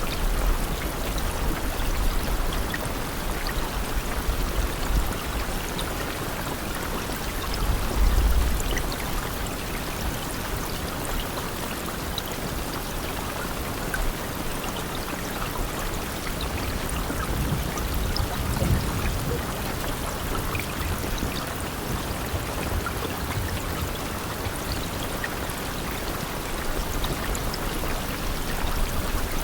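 Steady rain falling hard, an even hiss with many small drop patters. Brief low rumbles come about eight seconds in and again around eighteen seconds.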